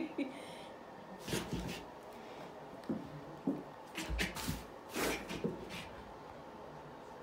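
A few short rustles and soft thumps, scattered through a quiet room: a cat and a small dog moving about on a crinkly plastic-backed puppy pad and a rug.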